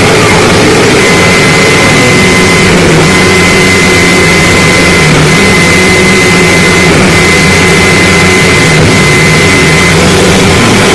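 Harsh noise music: a loud, unbroken wall of distorted noise that never lets up. A thin, steady high tone rides above it from about a second in, dropping out briefly a few times.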